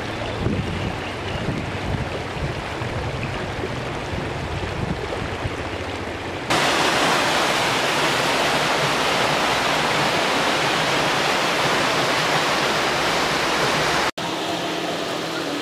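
Shallow mountain river running over stones, a steady wash of water. About six seconds in it jumps to a louder, brighter rush of close fast-running stream water, then drops back to a softer river sound after a brief break near the end.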